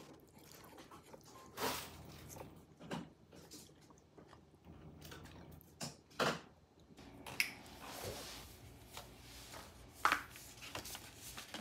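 Eating sounds: scattered sharp clicks of wooden chopsticks and a wooden spoon against a ceramic noodle bowl, with chewing between them.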